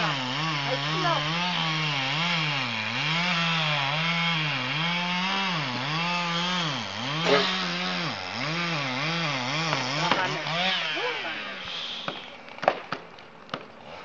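Chainsaw cutting into a large tree trunk, its engine pitch dipping and recovering again and again as the chain bites. Near the end the saw drops away and a few sharp cracks are heard.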